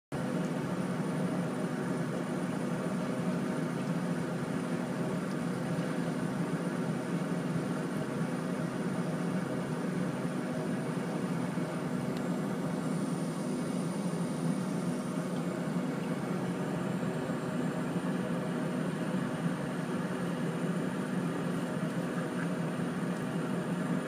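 Heavy diesel engine of logging machinery running steadily.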